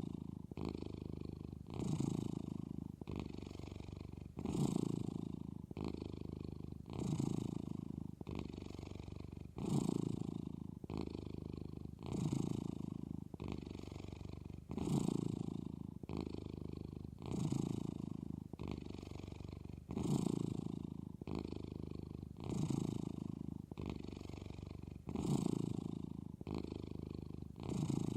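Domestic cat purring steadily, the purr swelling and easing with each breath about every two and a half seconds.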